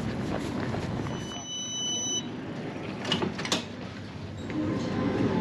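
Hurried footsteps onto an Edinburgh tram, then the tram's door warning beep, one high tone about a second long, followed by two sharp clunks as the doors shut. Near the end the tram's traction motors start a steady hum as it moves off.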